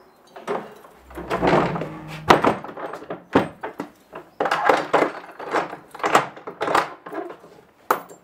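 Heavy old wooden door swung shut, closing with a loud thunk about two seconds in, then a run of metal clicks and rattles as a key is worked in its lock and the keys jangle.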